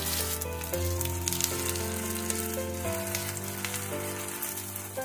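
Semolina-and-curd handvo batter sizzling and crackling as it is spooned into hot oil with mustard seeds, cumin and curry leaves in a frying pan, with a steady hiss and fine pops. A gentle background melody plays underneath.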